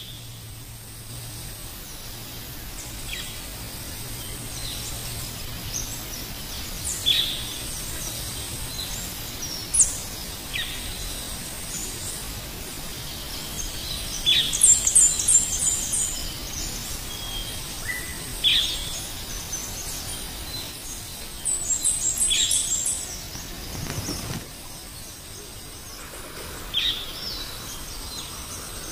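Wild birds calling over a steady outdoor rush: short falling whistles and quick runs of high chirps every few seconds.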